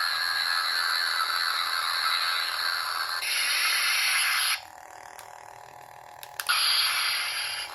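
Toy lightsaber sound effects played through its small built-in speaker: a steady hissing hum that swells louder about three seconds in, then cuts off suddenly. After a quiet gap with a couple of sharp clicks, the saber sound comes back on with a loud burst and carries on humming.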